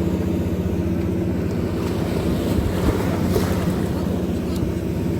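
A fishing boat's engine running steadily, a low even hum with a little wind and sea noise over it.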